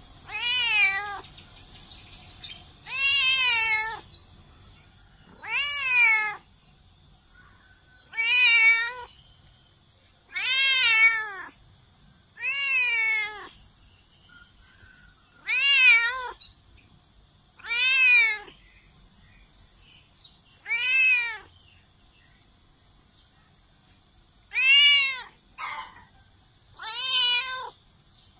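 Domestic cat meowing over and over: about a dozen separate meows, each rising then falling in pitch, spaced two to three seconds apart.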